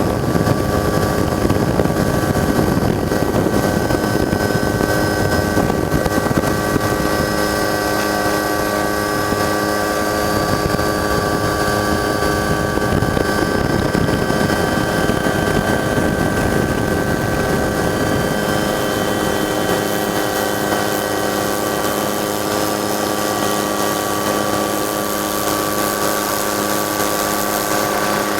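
Helicopter running in flight: a steady high whine of several held tones over a dense rotor and engine rumble, the low rumble easing about two-thirds of the way through.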